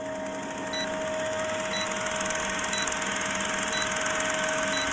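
Film-leader countdown sound effect: an old film projector running with a fast, even clatter and a steady hum, with a short beep about once a second as the numbers count down.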